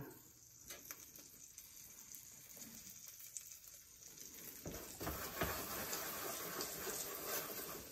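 Omelet eggs sizzling faintly in a nonstick frying pan over medium-low heat, with a few light clicks. About two-thirds of the way in the noise grows louder and rougher as the pan is taken by its handle and moved on the glass cooktop.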